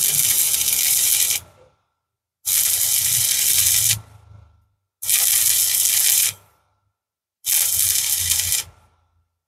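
Stick (shielded metal arc) welding arc on steel, crackling and hissing in four bursts of about a second and a half each. The arc is broken off between bursts, leaving near silence.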